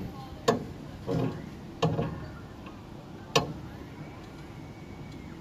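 Chairlift haul rope and grips clacking over the tower sheaves: about five sharp, briefly ringing metallic clacks at irregular spacing in the first three and a half seconds, over a steady low rumble of the lift running.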